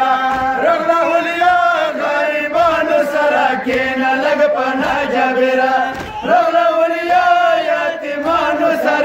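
Men chanting a Pashto noha, a Shia mourning lament, in long, drawn-out melodic lines, with a short break about six seconds in.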